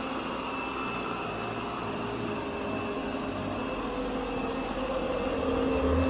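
Yeedi K700 robot vacuum running on carpet in spot-clean mode: the steady whir of its suction motor and brushes with a constant hum, growing louder in the second half.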